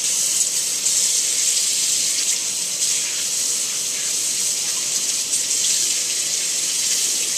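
Kitchen sink faucet running a steady stream that splashes over cupped hands into the sink basin.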